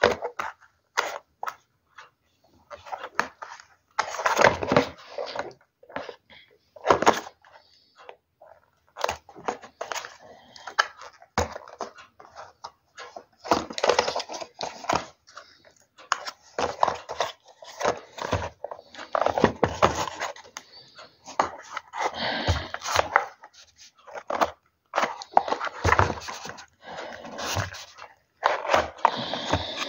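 Hands handling and opening a small cardboard display box for a model car: irregular rubbing, scraping and clicks of the packaging, in uneven bursts with short gaps.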